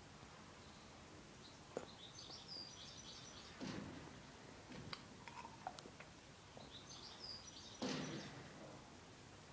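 A bird giving faint, short clusters of high chirps twice, about two seconds in and again near the end, with a few soft knocks and rustles between.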